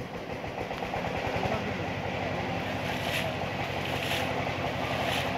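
Dense fizzing splashes of many fish fry churning at the surface of the water inside a pond net enclosure, over a steady machine hum. From about three seconds in, soft swishes of water come about once a second.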